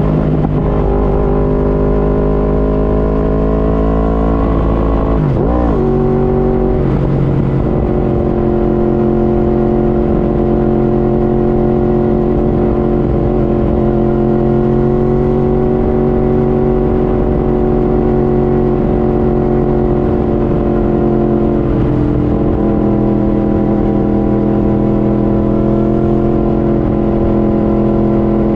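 A motor running loud and steady at one pitch, dipping and rising quickly in pitch about five seconds in and again near twenty-two seconds.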